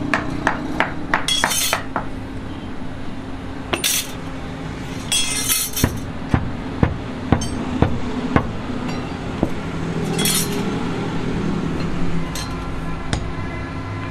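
Moulding sand being rammed into a steel casting flask with a hand rammer: a series of sharp knocks, about two a second in the middle stretch, with short bursts of gritty scraping between them.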